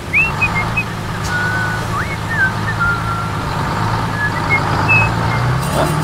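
A vehicle engine running steadily at a low hum, rising in pitch near the end as if speeding up, with short high whistling chirps over it.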